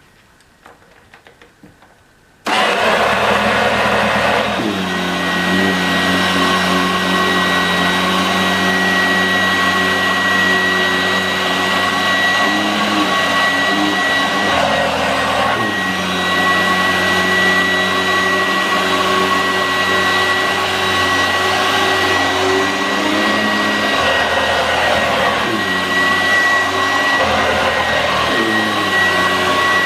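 1986 Vorwerk VK 117-1H upright vacuum cleaner with its powerhead switched on about two seconds in, then running steadily with a high whine while vacuuming sawdust from carpet. Its lower hum shifts in pitch several times as the load on it changes.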